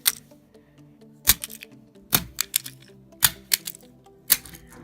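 Four sharp blows about a second apart striking a cheap plastic fidget cube to smash it, each followed by a few lighter clicks.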